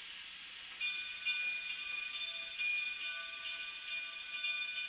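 Metallic squeal from the steel wheels and brakes of an arriving narrow-gauge steam train. Several steady, high-pitched tones set in about a second in and waver in loudness.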